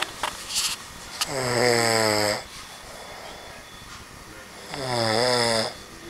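A sleeping man snoring loudly: two long snores about three and a half seconds apart, each a low, steady buzz lasting about a second.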